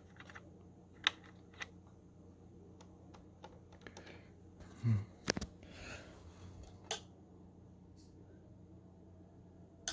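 Sparse small clicks and taps of plastic and metal clock-radio parts being handled, a few separate clicks spread seconds apart over a faint low hum.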